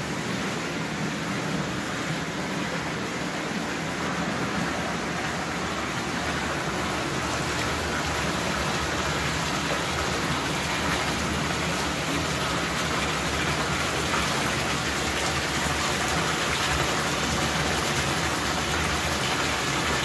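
Water from a marble-clad fountain waterfall pouring down its tiered walls and splashing into the pool below: a steady rushing splash that grows a little louder in the second half.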